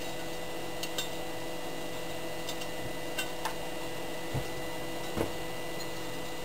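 Light clicks and knocks from a cast Rochester Quadrajet carburetor body and its clip leads being handled and set on a workbench, over a steady electrical hum. The loudest knock comes about five seconds in.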